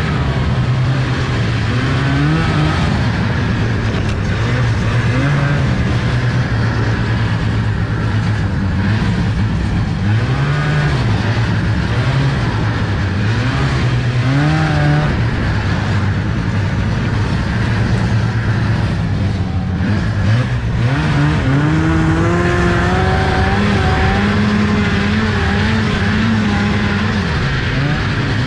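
1975 Arctic Cat Panther 440 snowmobile's two-stroke twin engine running under way through deep snow, its pitch rising and falling with the throttle. About three quarters of the way through it climbs and holds higher.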